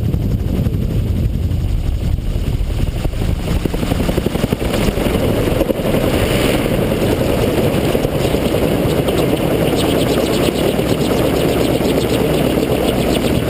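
Gyrocopter engine and rotor running steadily through touchdown and roll-out on a grass field.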